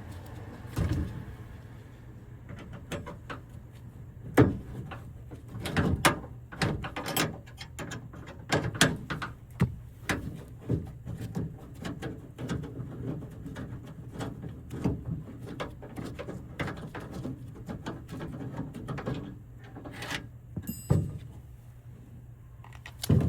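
Irregular sharp clicks and knocks of a socket wrench and tools working the bolts of a minivan's rear sliding door handle, with metal parts tapping against the door. A brief thin high squeak comes near the end.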